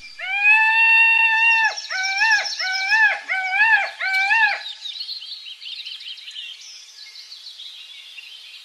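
A loud pitched animal call in a jungle ambience: one long held note, then four shorter notes that each rise and fall. Fainter high bird chirps and trills run on above it and fade away near the end.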